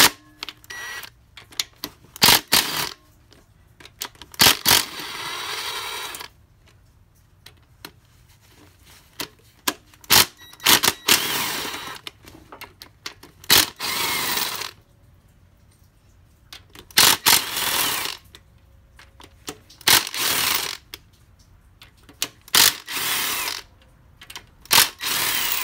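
Cordless power tool spinning camshaft bearing cap bolts loose in about eight short runs of a second or two each. Sharp clicks and knocks of the socket and extensions come between the runs.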